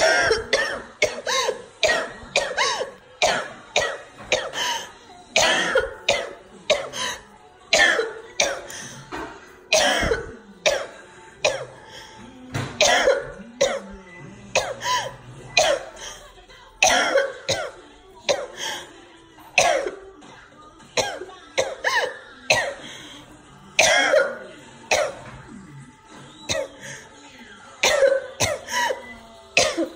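A woman coughing hard and repeatedly in a long coughing fit from an asthma attack, short coughs one or two a second with brief gaps. A TV cartoon's music plays faintly underneath.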